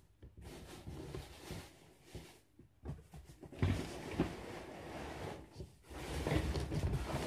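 Packaging rustling and scraping inside a large cardboard box as parts of a boxed gaming chair are handled, with a couple of soft knocks about halfway through.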